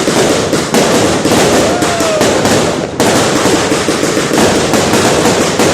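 Fireworks going off in a loud, dense, continuous crackle of rapid pops, with fresh bursts setting in sharply about a second in and again about halfway through.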